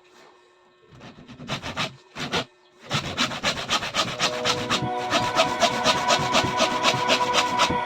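Wood being worked by hand with a rasping back-and-forth tool. A few separate strokes come first, then a fast, even run of about six strokes a second from about three seconds in.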